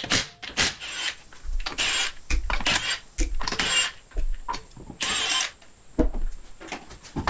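Impact wrench with a 22 mm socket spinning the lug nuts off a car wheel in a string of short bursts.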